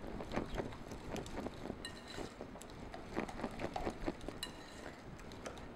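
Wire whisk beating a runny pecan pie filling of syrup and eggs in a glass bowl: faint, irregular light clinks of the wires against the glass.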